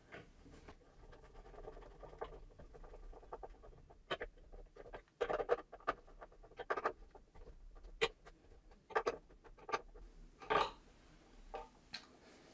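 A screw being driven by hand with a screwdriver to fasten a 3D-printed plastic mount, heard as irregular scratchy creaks and sharp clicks in short spurts, with small handling knocks.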